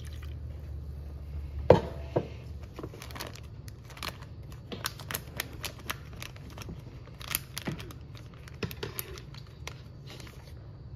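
Sharp knock about two seconds in as the glass measuring cup is set down on the counter, then a plastic zip-top bag of broth crinkling and clicking as its zipper is pressed shut.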